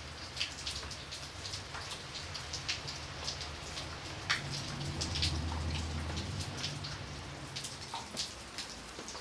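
Light rain: a steady patter of drops, with many distinct drops tapping sharply on a surface. A low rumble runs underneath and swells about five seconds in.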